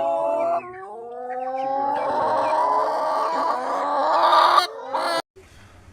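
Chickens calling with drawn-out, sliding notes, then the sound cuts off suddenly about five seconds in.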